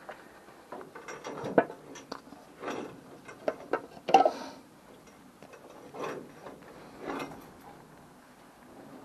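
Metal hand tools working on the motorcycle's bolts: irregular sharp clicks and several short scraping strokes, the loudest about four seconds in.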